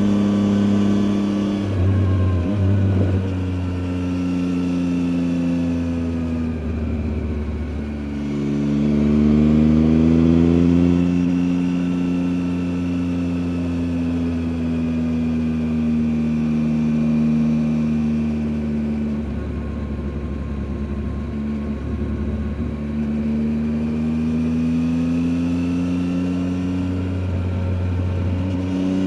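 Triumph Tiger 800 XCA's three-cylinder engine heard from onboard, its note rising and falling with the throttle, with a few brief breaks in the note.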